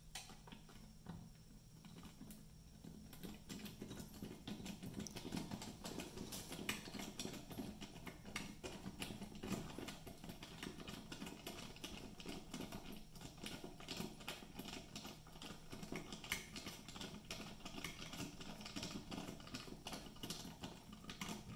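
T15 Torx screwdriver driving a screw into the plastic back housing of a pulse oximeter monitor, making quiet, rapid, irregular clicking and ticking that gets busier after about three seconds.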